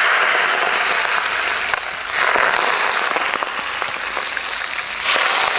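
Hot oil poured over Sichuan peppercorns, dried chillies and minced garlic, sizzling with dense crackling. The sizzle swells again about two seconds in and once more near the end.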